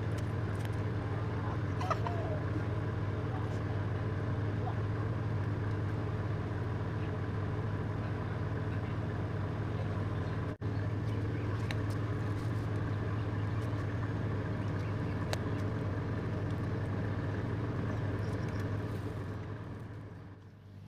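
A large engine running steadily with a low, even hum. It drops out for an instant about halfway and fades out near the end.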